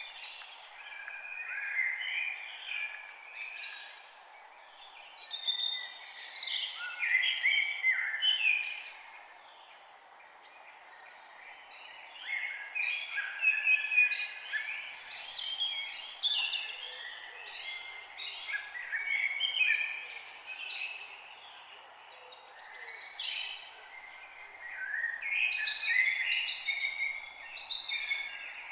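Several songbirds chirping and singing at once, their quick overlapping notes coming in busy bouts with brief lulls around a third of the way in and again near the end, over a faint steady background hiss.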